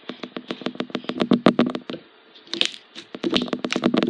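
Sticky homemade slime being squeezed and kneaded by hand, making a rapid run of wet clicks and pops several times a second, with a short pause about halfway through.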